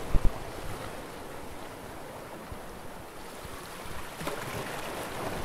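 Steady outdoor rushing of wind on the microphone and sea surf, with an uneven low rumble. Two low thumps come at the very start.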